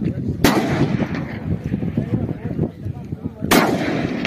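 Two rifle shots about three seconds apart, each sharp and followed by a short echoing tail.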